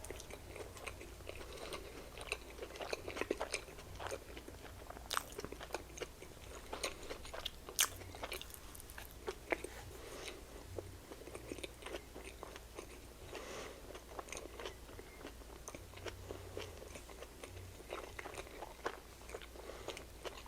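Close-miked chewing and biting of a soft slider burger, with scattered wet mouth clicks and smacks.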